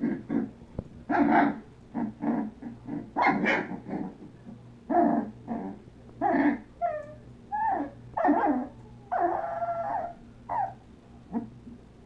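Puppies barking and yipping in a rapid string of short, high barks, with a few short falling whimpers about seven seconds in and one longer drawn-out whine around nine seconds.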